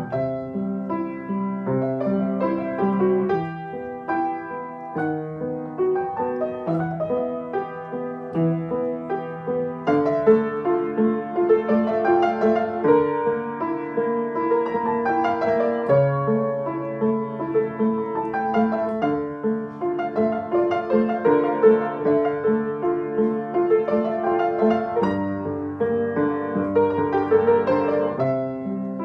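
Upright acoustic piano played solo: a gentle, lyrical piece, growing fuller and louder about ten seconds in.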